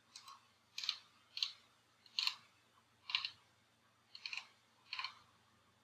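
Computer mouse buttons clicking: about seven short, sharp clicks, spaced roughly a second apart.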